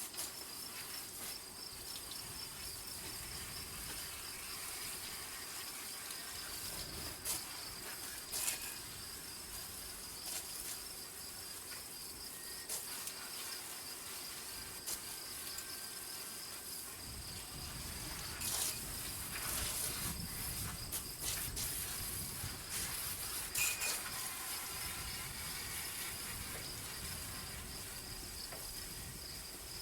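A steady, high, finely pulsing insect trill, typical of crickets, runs throughout. A few short scrapes or knocks come through, and a low rumble joins about halfway.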